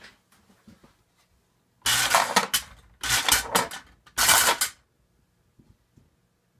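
American Flyer log loader dumping its load of wooden toy logs: three loud bursts of clattering about two to five seconds in, as the logs tumble and roll onto the platform.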